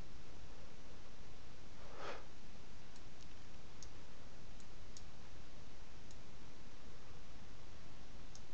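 Computer mouse clicks: about seven short sharp clicks spread over the second half, over a steady hiss of microphone and room noise, with one short soft rush of noise about two seconds in.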